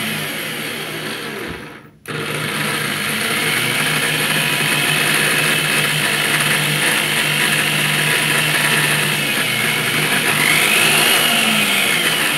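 Corded electric drill with a thin bit running while drilling a hole through an apricot pit. It cuts out briefly about two seconds in, then starts again and runs steadily.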